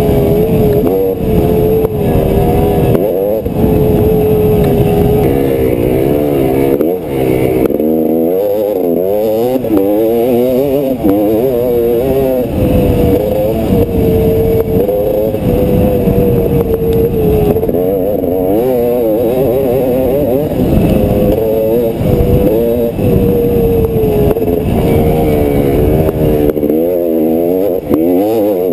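GasGas 300 EC two-stroke enduro engine heard on board, close to the rider, under constantly changing throttle: its pitch holds fairly steady for the first few seconds, then rises and falls rapidly through the middle and again near the end.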